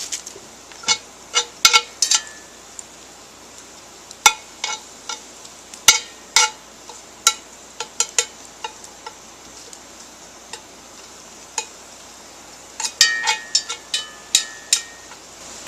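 A metal utensil clinking and scraping against a cooking pot as hamburger is stirred and broken up to brown, some strikes ringing briefly. The clinks come in quick clusters near the start and again near the end, sparser in between.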